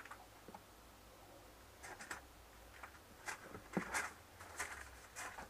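Faint scattered clicks and light knocks of hands working around a set of digital kitchen scales on a wooden workbench: a finger pressing the scale buttons and a leather puppy dummy being picked up and brought to the scales. The clicks come in a loose run from about two seconds in.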